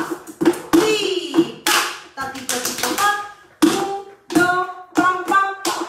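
Flamenco shoes striking a wooden floor in quick, irregular bulería footwork, mixed with hand claps, with a woman's voice vocalising in short phrases in between.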